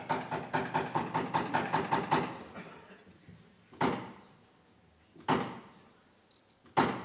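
A theatre brigadier, a wooden staff struck on the stage floor: a quick run of about a dozen knocks, then three slow, separate knocks about a second and a half apart, each ringing briefly in the hall. These are the traditional French 'trois coups' that signal the play is about to begin.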